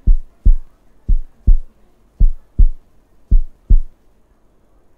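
Background music beat of deep paired thumps, like a heartbeat, about one pair a second, stopping about four seconds in.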